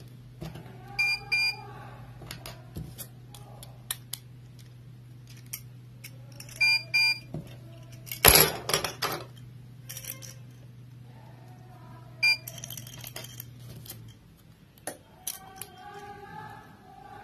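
Metal keychains clinking and clacking as they are handled on a table, with short ringing metal chinks, a few in quick pairs, and one louder clack about halfway. A steady low hum runs underneath and stops near the end.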